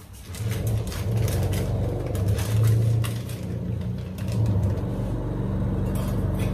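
A low, steady mechanical hum like a running engine comes in about half a second in and holds.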